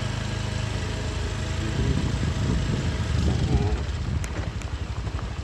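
Motorcycle engine idling steadily, then about two seconds in the sound turns uneven and rumbling as the bike moves off.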